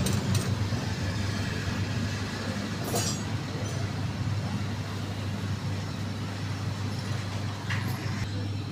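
Steady low rumble of motor vehicles running nearby, with a few short faint clicks.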